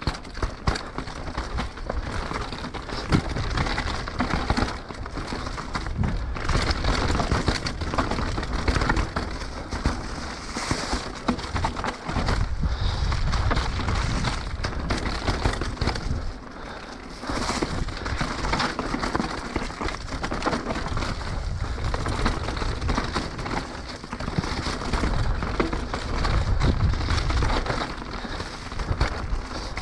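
Mountain bike ridden over a rough trail, rattling heavily: a dense, continuous clatter of loose parts knocking with every bump, with low rumbles coming and going.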